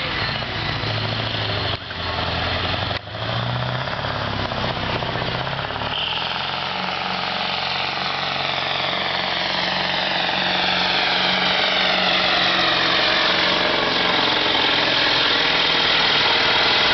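Mack semi truck's diesel engine running at full power under heavy load as it drags a weight-transfer sled, with two brief drops in sound in the first few seconds. It grows steadily louder over the second half as the truck draws near.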